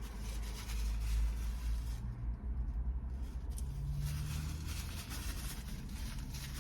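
Chewing fries close to the microphone in two spells, over a steady low rumble.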